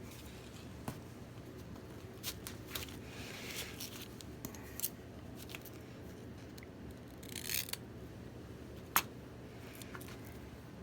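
Quiet bench handling while gluing up a foam sanding block: scattered light clicks and a few short scraping swishes, with one sharper click about nine seconds in, over a steady low hum.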